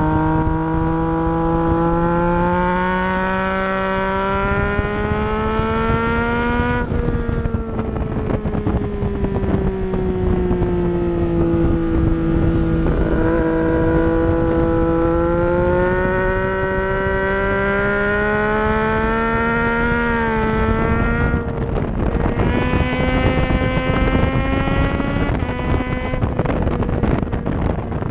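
Triumph Street Triple's inline-three engine under way on track, its pitch climbing slowly as it pulls through the revs, dropping sharply twice and sinking, then climbing again, with wind rushing over the microphone.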